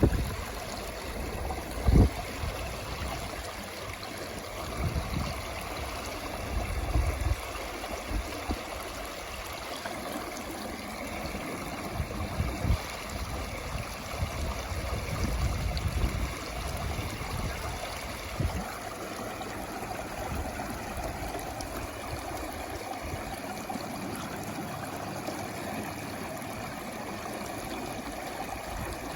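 Stream water flowing and gurgling steadily, with occasional low thumps, the loudest about two seconds in.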